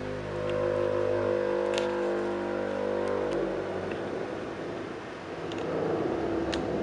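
Steady electronic drone of several held tones that gives way, about three and a half seconds in, to a rougher, noisier hum, with a few sharp clicks scattered through it.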